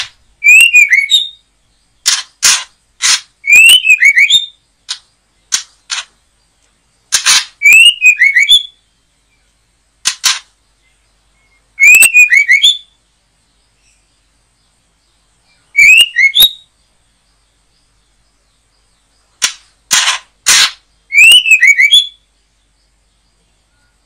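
White-rumped shama (murai batu) calling: a short whistled phrase repeated about every four seconds, among loud, sharp cracks.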